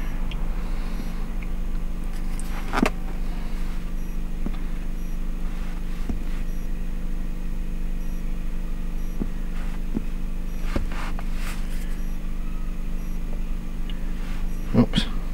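A steady low mechanical hum, with a few faint taps of a stylus on a scan tool's touchscreen scattered through it.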